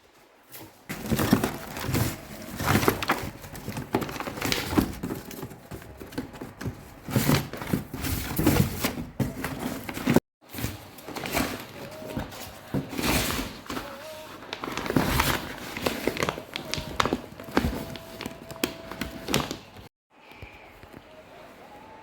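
Rustling and knocking of papers, files and notebooks being handled, shuffled and set down, with the sound cutting out briefly twice.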